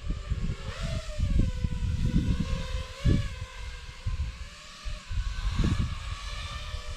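Motors and propellers of an iFlight Nazgul Evoque F6D six-inch FPV quadcopter in flight, their whine rising and falling with the throttle. Gusts of low wind noise come and go, loudest about three seconds in and again near the end.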